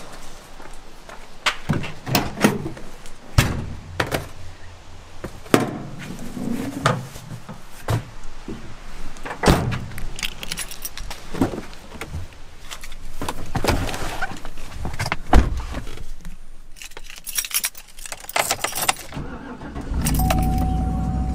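Knocks and clunks from loading and getting into a Chevrolet pickup truck, with keys jangling. Near the end the truck's engine starts and runs steadily, with a steady electronic tone.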